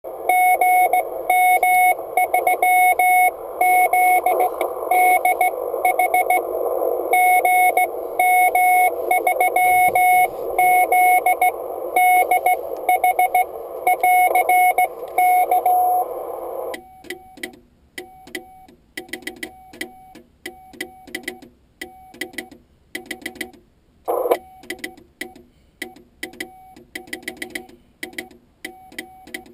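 Morse code from an Icom IC-701 HF transceiver: a keyed tone of about 700 Hz sounding dots and dashes over radio band hiss. A bit past halfway the hiss drops out suddenly, and a quieter keyed tone carries on with a sharp click at each keying, as when the operator sends with his homemade key and hears the sidetone.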